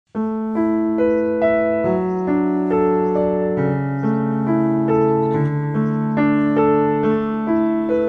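Background music: a slow, gentle piano arpeggio, with a new note struck about twice a second and each left ringing over the next.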